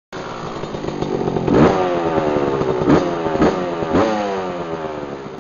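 Small dirt bike engine revved in four sharp throttle blips, its pitch falling away after each one, then easing off and fading near the end.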